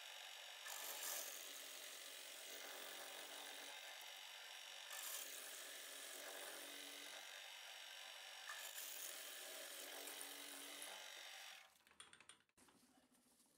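Small milling machine running, its twist drill cutting a 5 mm tapping-size hole for an M6 set screw, faint and steady with a few louder swells. The sound cuts off suddenly near the end.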